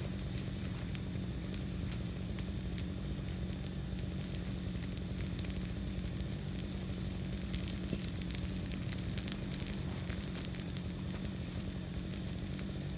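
Burn pile of interior live oak branches crackling, with many small sharp pops throughout, over a steady low hum.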